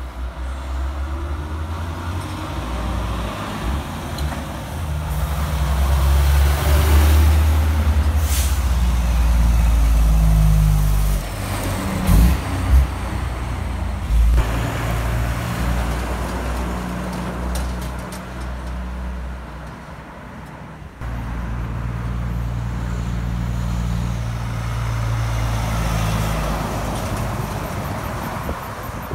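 Heavy diesel trucks passing close by, their engines running with a deep drone that swells as they go through, and a short hiss of air brakes about eight seconds in.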